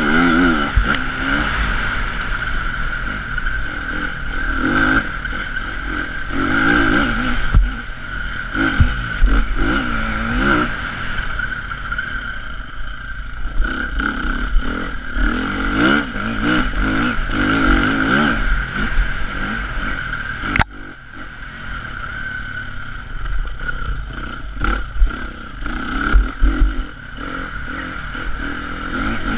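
Motocross dirt bike engine heard from the rider, revving up and down as it is ridden over a rutted dirt track, with rattles and knocks from the bumps. About two-thirds of the way through there is a sharp click, and after it the engine runs quieter.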